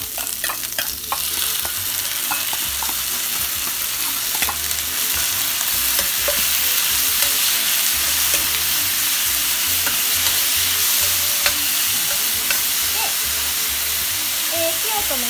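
Bean sprouts and deep-fried tofu stir-frying over high heat in a frying pan: steady sizzling as the seasoning sauce goes into the hot pan, with a metal ladle clinking and scraping as it tosses the food. A few sharp clinks come in the first second, and the sizzle thickens soon after.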